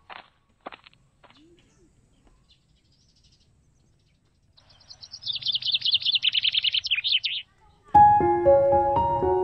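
A bird calling in a rapid trill of short, high notes that fall in pitch, lasting about three seconds. Piano music comes in near the end.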